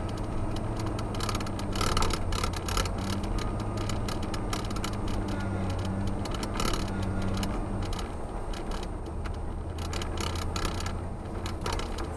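A 1990 Ford F-150's 302 (5.0 L) V8 running as the truck is driven on ice-covered snow, heard from inside the cab. Its note shifts up and down a few times, with a scatter of sharp clicks and ticks over it.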